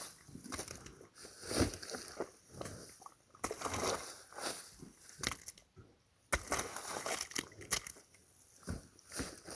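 Moose moving through a muddy wallow: irregular wet sloshing and squelching with short knocks and crunches, coming and going in uneven bursts.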